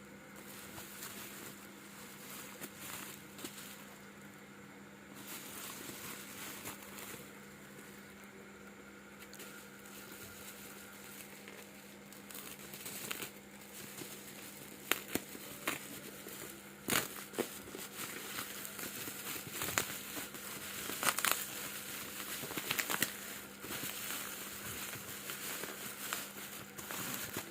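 Packaging being handled and unwrapped, crinkling and rustling, with scattered sharp clicks and taps that come more often from about halfway through. A faint steady hum runs underneath.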